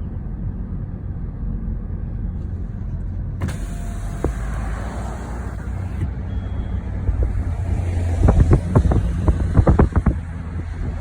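A car driving, with a steady low road and engine rumble heard from inside it. About a third of the way in a brighter rushing hiss comes in suddenly. In the second half there is a cluster of sharp knocks and thumps, the loudest sounds in the clip.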